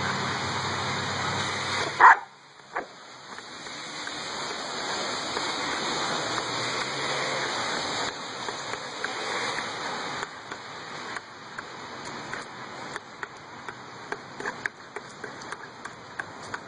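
Steady rain falling, with a dog giving two short barks about two seconds in, the first the loudest sound here. After that the rain is quieter, with scattered small clicks.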